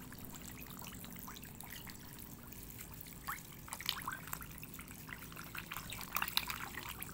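Catfish splashing and slurping at the water's surface as pellet feed is scattered onto the pond, small sharp splashes starting about three seconds in and coming more often toward the end, over a faint steady low hum.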